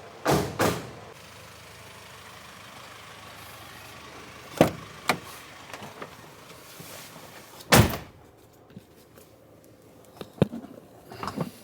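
A handful of sharp knocks and thumps, two in quick succession at the start, then single ones spread through, with a cluster near the end, over a steady low background hum.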